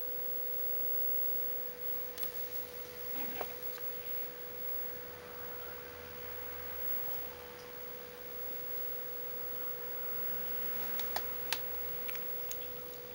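A steady, even whine at one pitch, with a few faint clicks and rustles about three seconds in and again near the end.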